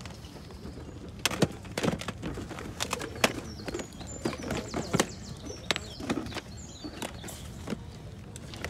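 Plastic video game cases clacking and knocking against each other as they are handled and flipped through in a plastic tub: irregular sharp clicks.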